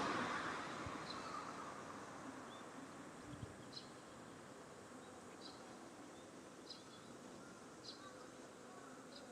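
A vehicle that has just passed fades away over the first couple of seconds, leaving faint outdoor ambience. Through it come short high chirps about once a second, most likely an insect calling.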